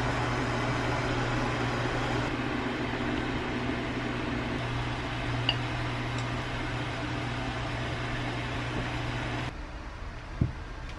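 Steady whirring hum of a kitchen fan running, which cuts off suddenly near the end. There is a light clink of glass about halfway through.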